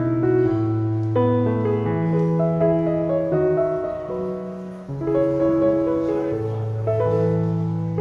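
Slow piano music: held chords and notes that change about once a second, briefly fading just before the middle and picking up again.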